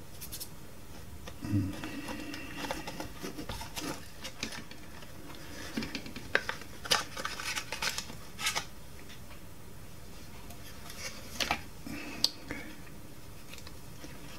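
Plastic body shell and gear mechanism of a Duracell drumming bunny toy clicking and knocking as they are handled and pulled apart, with a cluster of sharper clicks about halfway through and a few more near the end.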